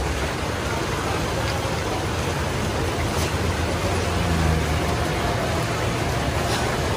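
Steady heavy rain on a wet road, with the low steady drone of vehicle engines climbing the steep hairpin, a loaded cargo truck among them.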